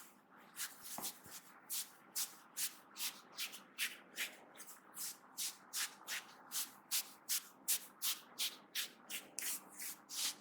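Hands rubbing briskly over hair and scalp in a rhythmic head massage: even, hissing strokes at about three a second.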